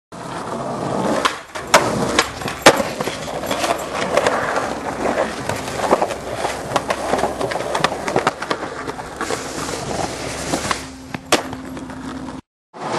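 Skateboard wheels rolling over concrete, broken by many sharp clacks of the board hitting the ground, the loudest a little under three seconds in.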